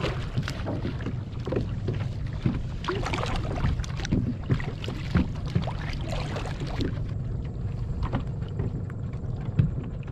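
Water slapping and splashing against a moving kayak's hull in small, irregular crackles over a steady low rumble, fading away near the end.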